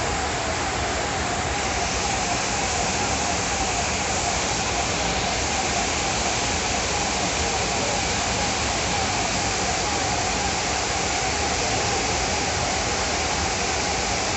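Floodwater rushing in a strong current down a flooded street: a steady, unbroken rush of water.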